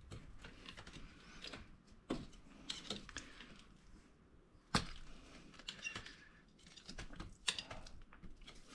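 Faint, scattered clicks and scrapes of a pry tool working at a part on a TKO600 transmission case, with a few sharper clicks, the loudest about five seconds in.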